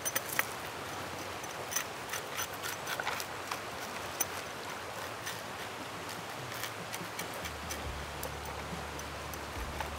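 Steady rushing of running river water with scattered sharp clicks and knocks. A low steady hum comes in near the end.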